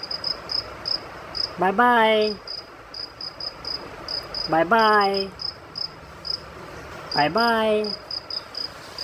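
A cricket chirping steadily in quick high pulses at one pitch. Three times, about two and a half seconds apart, a short low hum sweeps up in pitch and then falls away.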